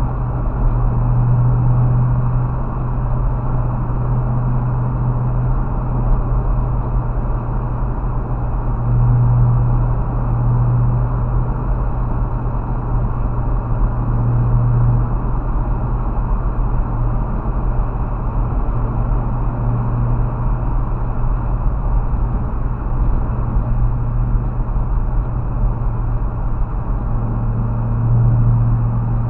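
Steady road noise of a car driving at highway speed, heard from inside the cabin, with a low drone that swells several times.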